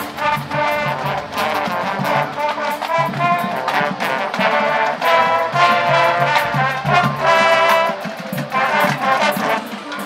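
High school marching band playing, its brass section sounding loud held chords that swell and break off in phrases, over light percussion.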